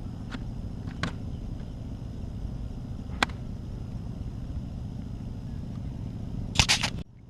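Wind rumbling on the microphone, with a few sharp knocks and clicks, a quick cluster of louder ones near the end, after which the sound drops away abruptly.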